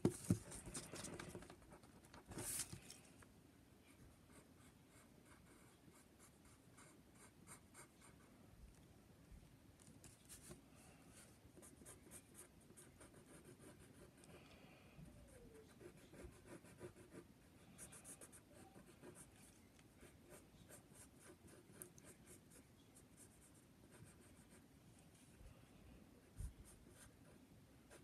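Pencil drawing on a sheet of paper: faint, quick scratching strokes throughout, with a few louder scuffs in the first few seconds.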